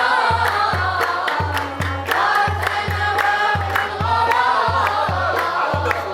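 A group of voices singing together over a steady deep drum beat, nearly two beats a second, with sharp percussion strokes on top.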